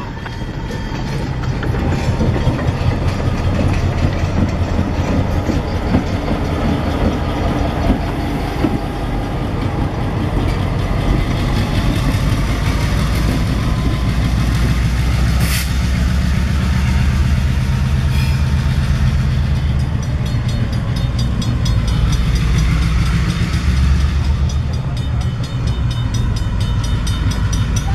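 Diesel-hauled train running: a low locomotive engine drone under the clatter of wheels on rail, building up over the first few seconds, with two brief sharp clicks about midway.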